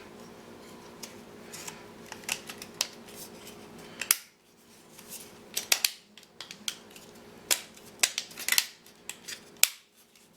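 Plastic model-kit parts being handled and snapped together, with irregular sharp clicks and taps. Several of the loudest clicks come between about four and ten seconds in.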